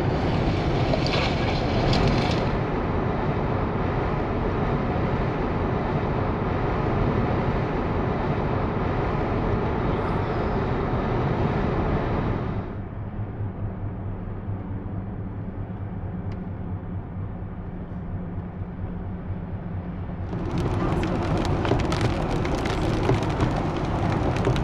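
Steady road and engine noise inside a Jeep Wrangler driving on the highway, changing abruptly where the clips are cut, about a tenth and halfway in. In the last few seconds it gets louder and brighter as the tyres run on a rain-wet road.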